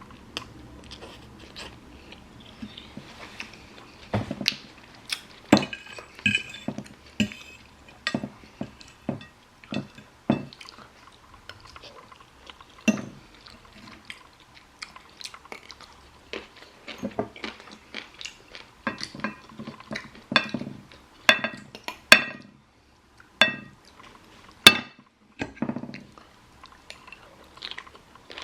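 Eating sounds: eating utensils clicking and clinking against a dish many times, some strikes ringing briefly, with chewing in between.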